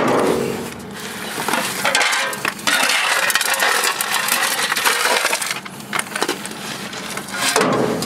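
Push broom sweeping broken concrete chips and grit across asphalt onto an aluminum scoop shovel: a steady gritty scraping with small chips clinking against the metal, heaviest in the middle.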